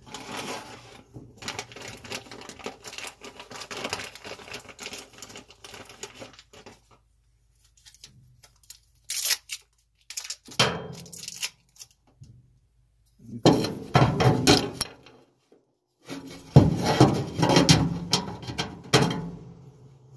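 Parts of a dryer's drive assembly being handled during disassembly: clicks, rattles and clunks of metal and plastic pieces, in several separate bursts with short quiet gaps.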